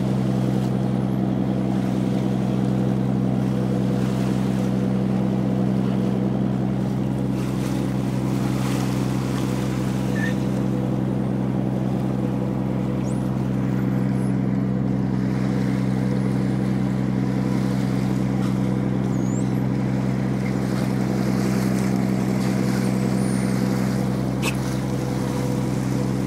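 Fishing trawler's diesel engine running steadily, a low even hum, with water rushing along the hull.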